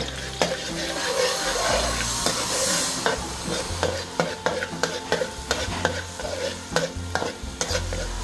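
Minced garlic sizzling in a little oil in a steel wok while a metal ladle stirs it. The ladle scrapes and clicks against the wok, the clicks coming about three a second from roughly three seconds in.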